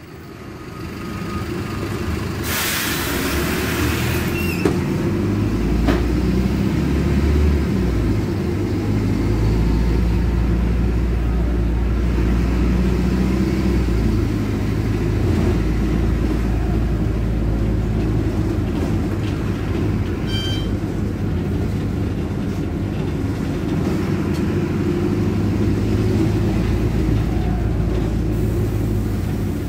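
Mercedes-Benz OH1621L city bus's rear-mounted OM-924 LA four-cylinder diesel running under way through its free-flow exhaust ('escape libre'), heard from inside the cabin, its low drone shifting as the bus pulls. A burst of hiss lasts about two seconds near the start, and a short high tone sounds about twenty seconds in.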